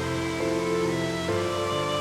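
Background music: slow, gentle instrumental chords that change about every half second to a second.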